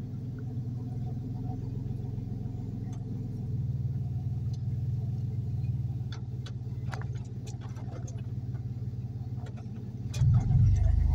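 Car engine and tyre noise heard from inside the cabin while driving slowly, as a steady low hum with a few faint clicks. A brief louder low rumble comes near the end.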